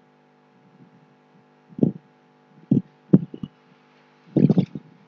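A few dull computer-keyboard taps at irregular intervals while code is being edited, over a steady low electrical hum.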